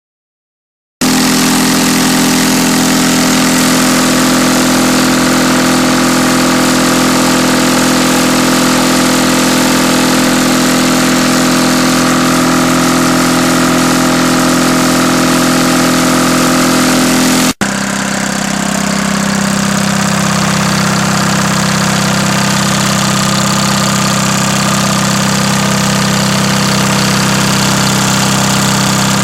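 Detroit Diesel 2-71 two-cylinder, two-stroke diesel running steadily at a constant speed while driving a generator. It starts abruptly about a second in. About two-thirds through, the sound breaks off for an instant, then resumes with a deeper tone.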